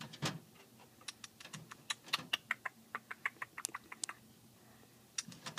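Dwarf rabbit's claws tapping on the wire-mesh floor of its hutch as it hops about: a quick, irregular run of light clicks, with one louder tap just after the start.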